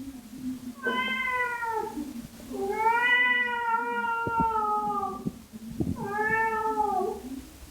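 Domestic cat giving long, drawn-out yowling meows, three in a row, the middle one the longest, each bending down in pitch at its end. A low steady drone and a few short clicks sit beneath.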